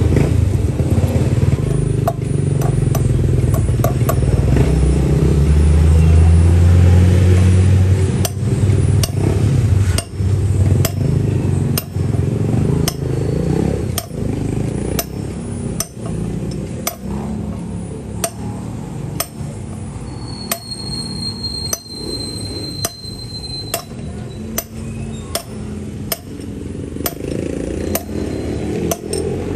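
Steel hammer blows at a steady pace, about one and a half a second, driving a new NSK 6300 ball bearing into a Yamaha NMAX mag wheel hub, over a low rumble.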